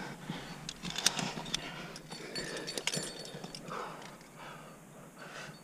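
A lead climber's breathing as he climbs, with the metal carabiners and quickdraws on his harness clinking in a few sharp clicks, the clearest about a second in and again near three seconds.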